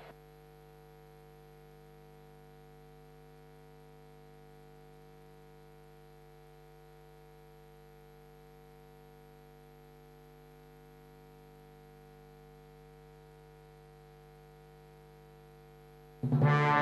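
Steady electrical hum made of several unchanging tones, with no other sound. Brass music starts suddenly near the end.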